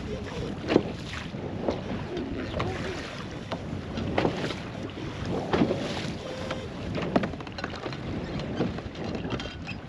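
Wind rumbling on the microphone in a small boat on the water, with a few sharp knocks at irregular intervals, the loudest about a second in.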